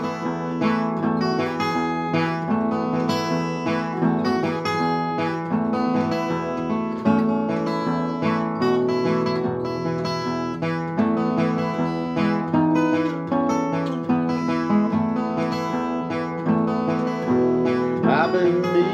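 Steel-string acoustic guitar strummed in a steady rhythm: an instrumental break between the sung verses of a song.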